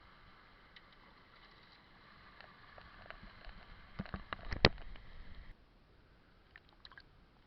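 Sea water washing and sloshing around coral rocks, with a quick run of knocks and clicks between about four and five seconds in, the loudest near the end of the run; the background drops away abruptly about five and a half seconds in.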